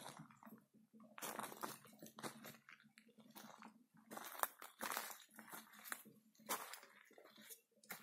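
Footsteps on dry leaf litter, twigs and stones, coming in irregular short crunches as someone walks over rough ground.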